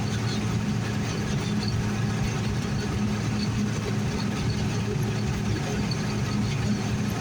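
John Deere combine running steadily as it harvests barley: a constant low engine drone that does not change in pitch or level.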